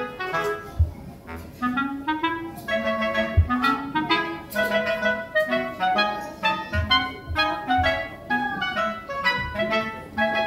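Background music: a quick melody of short notes over a bass line.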